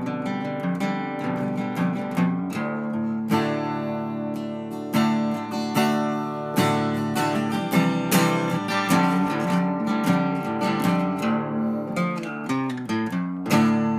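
Outro music: acoustic guitar playing, with plucked notes and strummed chords.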